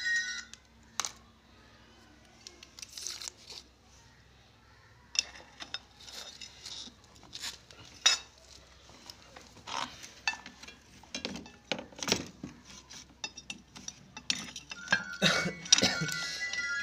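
A ceramic plate being handled over an old television's circuit board, giving scattered clinks and knocks, the sharpest about eight seconds in.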